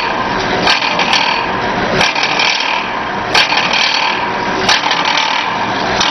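Teabag packaging machine running: a continuous mechanical rattle and rasp, broken by repeated sharp clicks every second or so.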